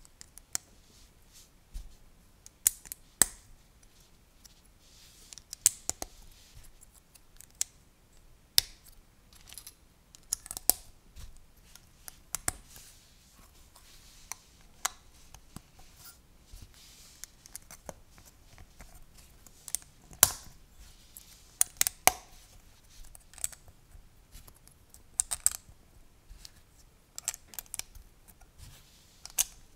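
LEGO plastic plates and bricks being handled and pressed together: irregular sharp clicks and snaps with light clatter.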